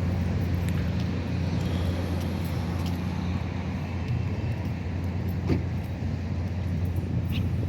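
Steady low engine drone, with a few faint clicks over it.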